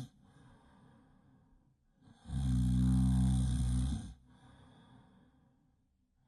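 Loud snoring: one long snore begins about two seconds in and lasts nearly two seconds, with a low buzz and a hiss. Quieter breaths come before and after it.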